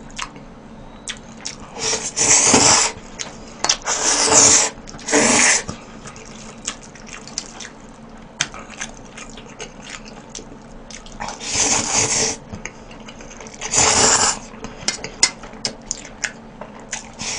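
A person slurping spicy buckwheat bibim-myeon noodles in loud, noisy pulls, about five times, with chewing and small clicks in between.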